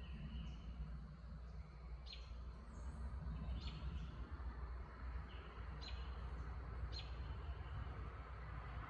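A bird giving short, sharp chip notes, about five spread over several seconds, each a quick downward sweep, with a few softer lower notes between. Under them runs a steady low background hum.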